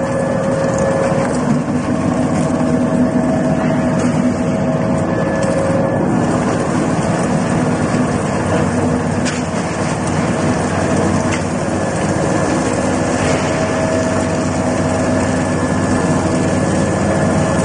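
Peanut oil screw expeller running steadily while pressing: a continuous mechanical hum from the motor-driven press with a few faint clicks.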